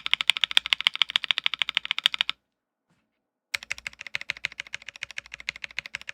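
Fast typing on a MonsGeek M1 custom mechanical keyboard with Akko CS Sakura linear switches on a POM plate, a rapid stream of key clicks. The typing stops about two seconds in, and after a second of silence it resumes a little quieter.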